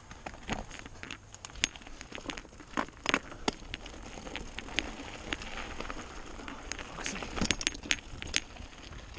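Mountain bike rolling down a loose gravel trail: tyres crunching over stones, with many irregular sharp clicks and rattles from gravel and the bike.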